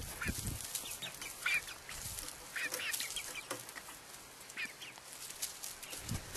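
A flock of chickens making soft clucks and short chirping calls, scattered a few times a second.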